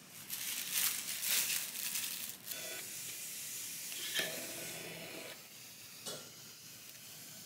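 Plastic takeout clamshell containers crinkling and rustling as they are handled, in a few crackly bursts over the first couple of seconds, then a faint steady hiss with a single click about six seconds in.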